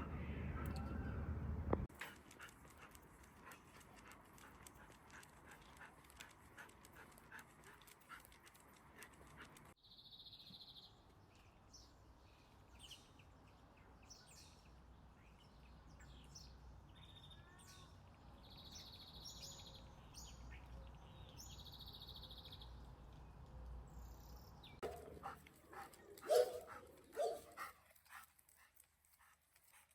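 Faint sounds of a pet dog, with scattered light clicks and a few short high squeaks; a louder low sound in the first two seconds.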